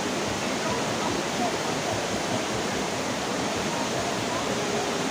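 Waterfall: steady, even rush of falling water.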